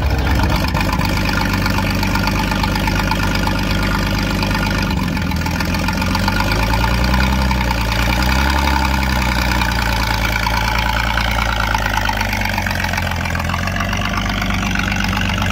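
Engine of a WWII Dodge WC-54 army ambulance, a flathead straight-six, idling steadily, with a brief rise and fall in engine speed midway.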